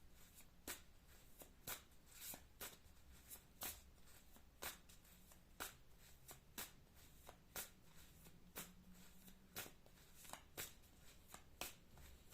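Faint tarot cards being shuffled and handled, with short sharp clicks about once a second.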